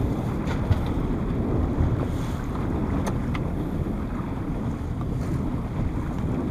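Small motorboat under way through a choppy sea: a steady low rumble of the boat and water rushing past the hull, with wind buffeting the microphone. A couple of light knocks about three seconds in.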